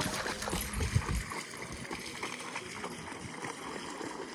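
Floodwater splashing and sloshing, with a sharp knock about a second in. A low rumble of wind on the microphone fades out after the first second or so.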